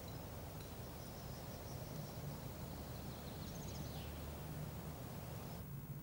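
Faint outdoor ambience over a steady low hum, with a few faint high chirps. The ambience drops away suddenly near the end.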